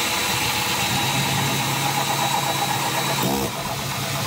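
Milwaukee M18 cordless drill driving a hole saw through wood: the motor runs steadily under load as the saw cuts. The sound eases slightly about three and a half seconds in.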